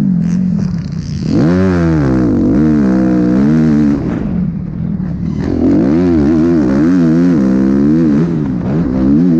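Motocross dirt bike engine heard on-board, its revs rising and falling over and over as the rider works the throttle around the track. The throttle is backed off briefly about a second in and again from about four to five and a half seconds in, and the engine revs back up after each.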